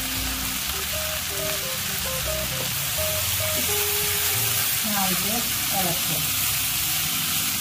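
Sprouted green gram sizzling in hot oil in a non-stick kadai, a steady frying hiss. About halfway through, a steel spatula starts stirring and tossing the beans.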